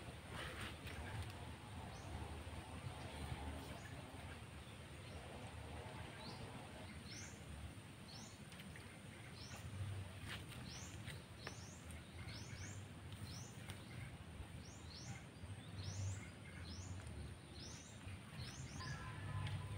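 A small bird calling: short, high chirps that rise in pitch, repeated about once or twice a second from a few seconds in, over a steady low outdoor rumble.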